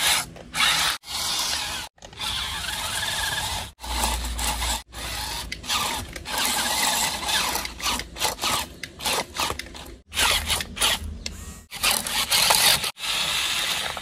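Electric drive motor and plastic gearing of a Yi Gong YG258-E RC toy dump truck whirring as it drives through sand, with sand scraping and crunching under the wheels. The sound stops and starts abruptly several times.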